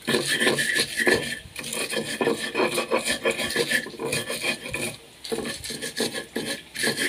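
Stone pestle (ulekan) grinding bird's-eye chilies coarsely on a flat stone mortar (cobek): repeated short scraping and crushing strokes of stone on stone.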